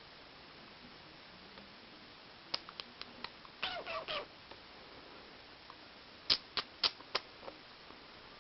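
A cat at play: a run of light clicks and taps, a brief wavering squeak in the middle, then four sharper clicks in quick succession.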